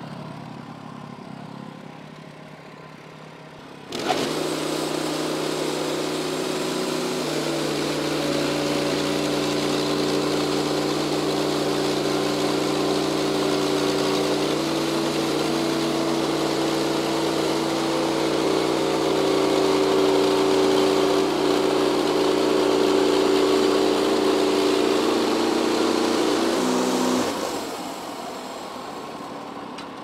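Gasoline engine of a Wood-Mizer LX55 band sawmill running under load as its band blade cuts through a large poplar log. It is quieter for the first few seconds, jumps up abruptly about four seconds in, holds steady with slight shifts in pitch, then drops off near the end.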